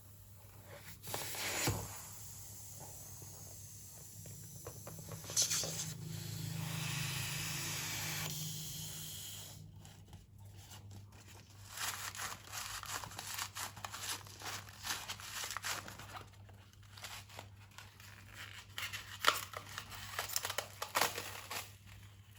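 Slime being squeezed out and stirred: a steady hiss partway through, then many small irregular crackles and sticky tearing sounds as the slime is worked.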